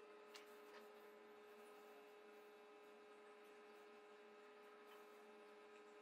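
Near silence: a faint, steady electrical hum, with two faint ticks about half a second in.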